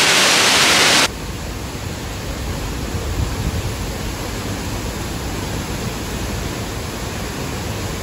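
Steady roar of the La Fortuna waterfall, a bright hissing rush of falling water. About a second in it cuts off suddenly and gives way to a duller, deeper rushing noise.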